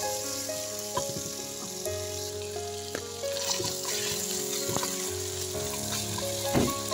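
Chicken pieces and mushrooms sizzling in a pot while a silicone spatula stirs them, with a few scrapes and knocks against the pot; the loudest knock comes near the end. Soft background music with held notes plays underneath.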